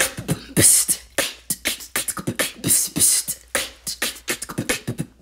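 Vocal beatboxing: a fast rhythmic routine of mouth-made drum sounds, with short low kick-like thumps alternating with sharp, hissing hi-hat and snare strokes.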